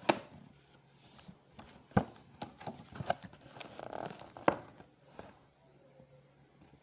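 Cardboard takeaway box being opened and handled: three sharp snaps or knocks, at the start, about two seconds in and about four and a half seconds in, with light rustling of cardboard and paper wrapper between them.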